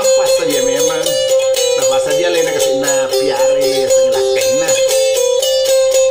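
Bugis kecapi, a two-string boat lute, played with quick plucking over a steady ringing drone note.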